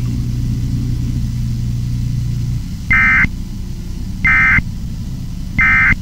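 Emergency Alert System end-of-message (EOM) code: three short, identical buzzy digital data bursts about 1.3 seconds apart, the first about three seconds in, marking the end of the alert. Before them a low steady hum runs and stops about two and a half seconds in.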